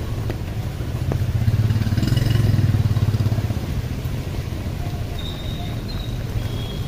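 A motorbike passing close, its engine swelling about a second in and fading out a couple of seconds later, over a steady low street rumble.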